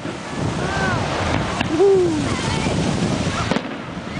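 Fireworks display heard from among the crowd: a steady rumbling haze with wind on the microphone, a couple of sharp bangs, and spectators' voices calling out, loudest about two seconds in.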